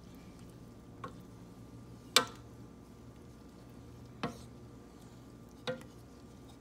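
A wooden spoon stirs rose petals and water in a stainless steel saucepan, knocking against the pot four times; the second knock is the loudest.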